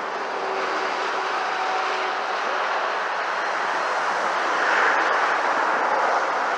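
Steady rush of passing highway traffic, tyres and engines, swelling as a vehicle goes by about five seconds in.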